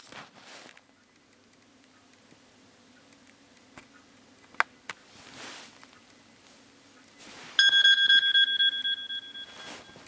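iPhone alarm tone previewing through the phone's small speaker: a loud, high, steady tone comes on suddenly about seven and a half seconds in and fades out near the end. Before it there is only a faint click and soft rustling.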